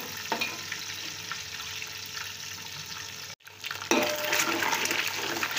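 Eggs frying in a pool of hot oil in a large metal pot, sizzling steadily while a metal ladle stirs and breaks them up. The sound cuts out for a moment about three and a half seconds in, then comes back louder.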